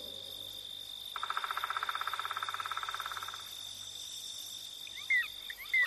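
Night-time nature ambience of insects: a steady high-pitched trill throughout, with a rapid pulsing trill for about two seconds starting a second in, and a few short chirps near the end.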